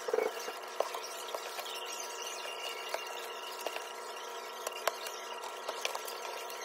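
Paper banknotes being handled and sorted by hand, with soft rustling and scattered crisp crackles and ticks as bills are picked from a loose pile and laid down.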